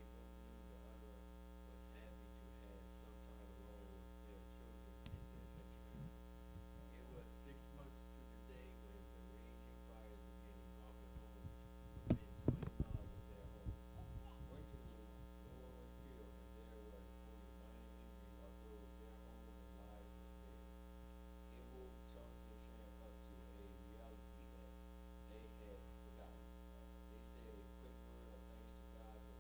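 Faint, steady electrical mains hum, with a short cluster of knocks and bumps about twelve seconds in.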